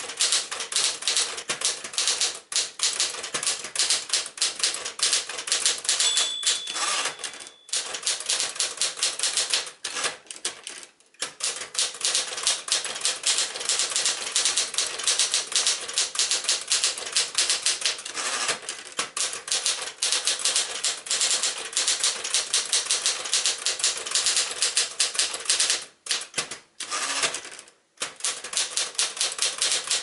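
Smith-Corona Galaxie Deluxe manual portable typewriter being typed on fast: a dense, rapid run of typebar clacks with a few short pauses. The line-end bell rings once about six seconds in.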